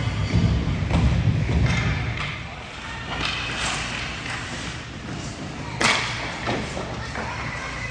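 Thuds and knocks echoing in a large hall, heaviest in the first two seconds, with one sharp knock about six seconds in.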